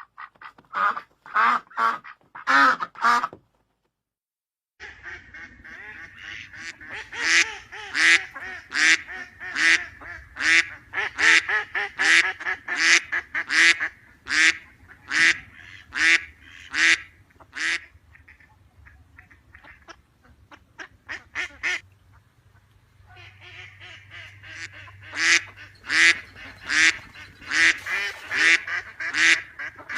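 Ducks quacking: a few quacks, a break of about a second, then long runs of repeated quacks at roughly one to two a second over a low steady hum. The quacks thin out and grow fainter in the middle and pick up again near the end.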